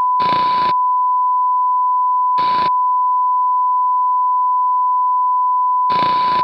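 Steady, unbroken TV test-card tone, the beep that goes with colour bars. Three short bursts of static hiss cut across it: one about a quarter of a second in, one about two and a half seconds in, and one near the end.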